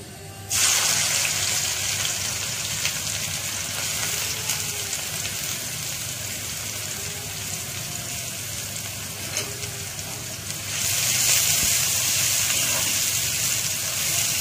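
Sliced onions dropped into hot oil in a metal wok, starting to sizzle suddenly about half a second in. The sizzle steadies, then grows louder about eleven seconds in as a spatula stirs the onions.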